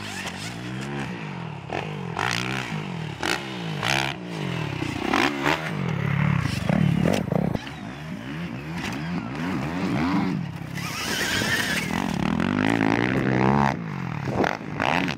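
Dirt bike ridden hard around a motocross track, repeatedly speeding up and backing off so its pitch rises and falls every second or so, with some clattering.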